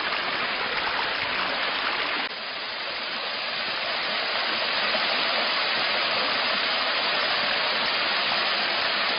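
Steady rush of water tumbling over rocks in a mountain stream, dipping suddenly about two seconds in and building back up.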